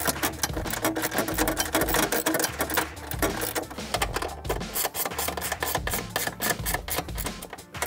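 Hand ratchet wrench clicking in quick strokes as it tightens the bolts of a steel-and-aluminium trunk brace.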